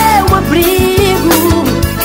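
Forró romântico band music in an instrumental stretch: a lead melody line over bass and a steady drum beat.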